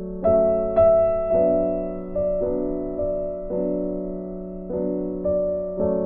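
Background music: slow, soft piano, with notes and chords struck about once a second and left to ring out.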